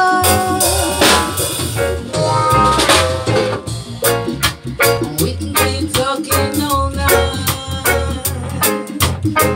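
A live band playing a song with a steady drum beat, a bass line and keyboards, in an upbeat reggae-style groove.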